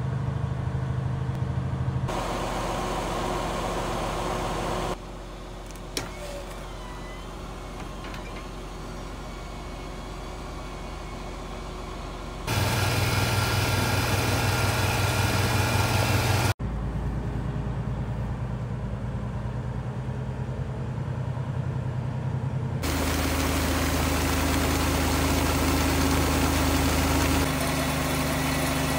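Engines running steadily in a string of short clips that cut abruptly every few seconds: a semi truck's diesel heard from the cab, and the small engine of a grain auger running as it loads the trailer.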